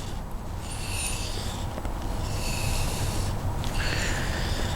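A carving gouge's steel edge drawn along a strop in three swiping strokes of about a second each, sharpening and polishing the bevel.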